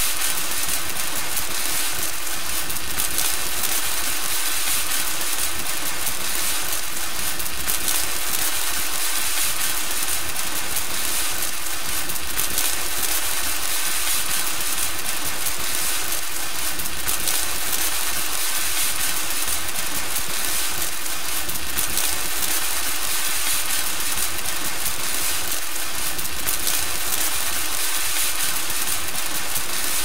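Pyrotechnic cake sparkler candle burning: a steady fizzing hiss full of fast, fine crackles that never lets up.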